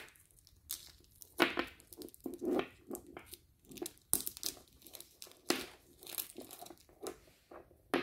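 Plastic shrink-wrap being picked at, torn and crinkled off a pack of batteries, in irregular short crackles with pauses between them.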